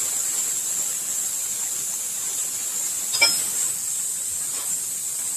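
CNC plasma cutter torch hissing steadily, a high-pitched rush of air and arc, with one short click about three seconds in.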